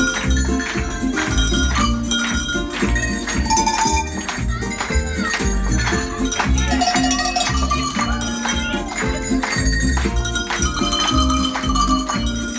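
A tune played on a set of tuned cowbells of graded sizes, each bell rung by hand in turn, over music with a steady beat, with the audience clapping along.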